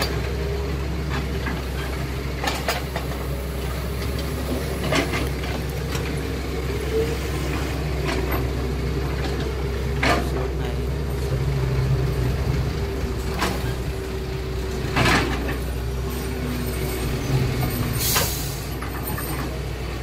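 Radio-controlled model crawler bulldozer driving and pushing sand: a steady motor hum with a held tone, broken about six times by short sharp clicks and knocks.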